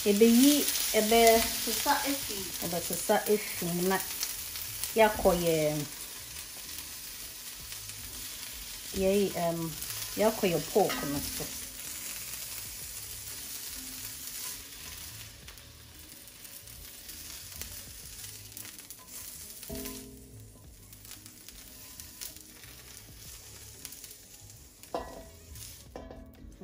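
Mixed vegetables sizzling as they stir-fry in oil in a pan, stirred now and then. A short melody is heard over the first ten seconds or so, and the sizzle thins out in the last several seconds.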